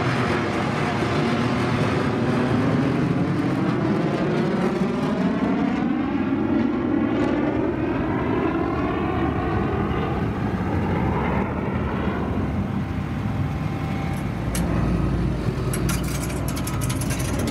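Caterpillar TH83 telehandler's diesel engine working hard under load as the machine climbs out of a ditch. Its pitch dips and then rises over several seconds. A few sharp clanks come near the end.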